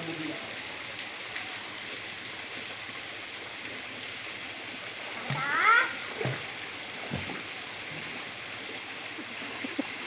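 Steady rush of water with light splashing from people swimming, and one short, rising, high-pitched cry from a voice about five and a half seconds in, the loudest moment.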